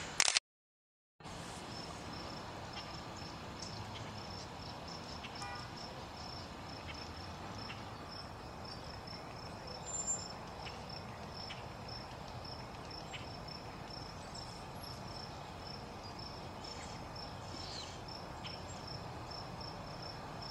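An insect chirping in a steady run of evenly spaced, high-pitched chirps at one pitch, over faint outdoor background noise. The sound drops out to silence for under a second near the start.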